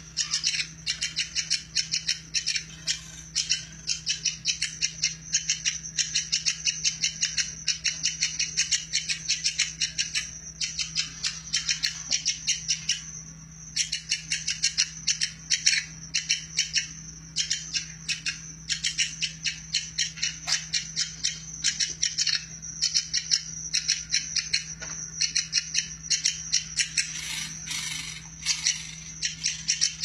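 Woodpecker calling in a long, fast rattling run of sharp, high-pitched notes, broken only by a short pause partway through.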